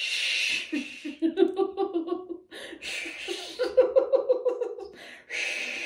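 A woman laughing on purpose, as in laughter yoga, in quick rhythmic bursts of ha-ha-ha. Each of the three rounds is led by a short breathy hiss.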